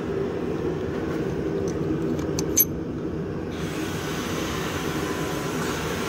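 A steady low machine hum, with a few light metal clicks between about one and two and a half seconds in, the sharpest near the end of them, as pushrods and rocker arms are set into place on a Chrysler 3.3 pushrod V6's cylinder head.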